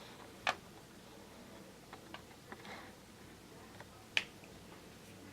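Two sharp clicks, about half a second in and about four seconds in, with a few softer taps between, from small makeup items being handled.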